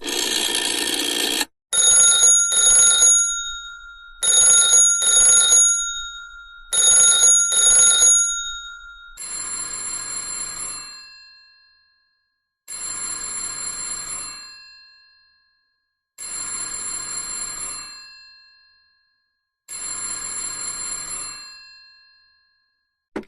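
Vintage telephone bells ringing. First a continuous ring cuts off early, then three double rings. About nine seconds in, four longer single rings with a different tone follow, each bell tone trailing off after the ring.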